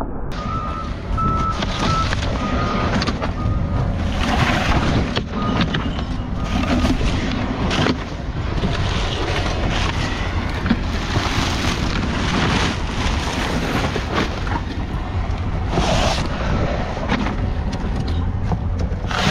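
A vehicle driving: steady engine and road noise, wind buffeting the microphone, and scattered knocks and rattles.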